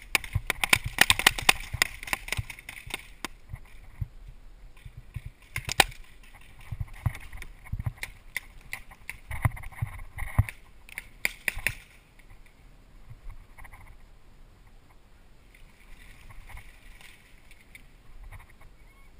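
Paintball markers firing in rapid strings of sharp pops, dense for the first three seconds and then in scattered bursts until about twelve seconds in, after which it goes quieter.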